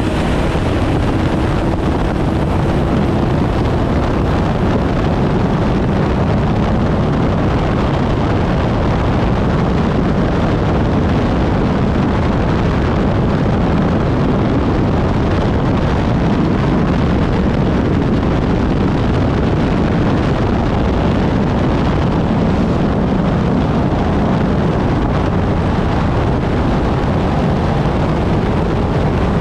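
Unlimited hydroplane's turbine engine running at racing speed, heard onboard as a steady loud roar, mixed with the rush of wind and water.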